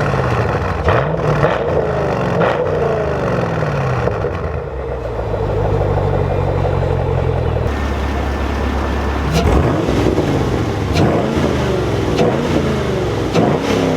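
2012 Chevrolet Camaro SS's 6.2-litre V8, breathing through a cold air intake and Borla dual exhaust, being revved several times, its pitch rising and falling, with a stretch of steady idle in the middle.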